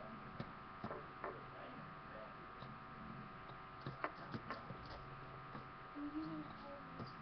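Two Metal Fight Beyblade tops spinning in a plastic stadium: a faint steady whir broken by a few sharp clicks as the metal-wheeled tops knock against each other, the loudest about four seconds in.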